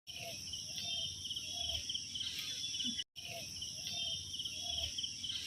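Night-time insect chorus: steady high chirring with a fast pulsing chirp over it, and short low calls from other animals now and then. The sound drops out for a moment about three seconds in.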